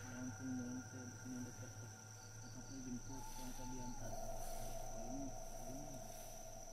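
Night insects, crickets, chirring steadily at several pitches at once, with short low repeated notes underneath.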